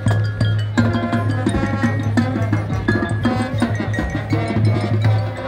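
Marching band music: a steady low bass note held under rhythmic percussion and short mallet-keyboard notes from the front ensemble.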